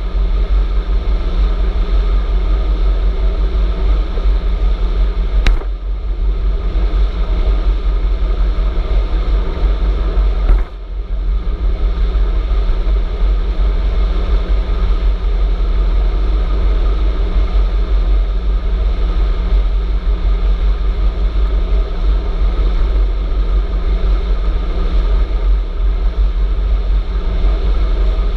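Wind buffeting the microphone of a camera mounted on a moving e-bike, a steady rush with heavy low rumble, over tyre noise on asphalt. A sharp click about five seconds in, and a brief drop in level near eleven seconds.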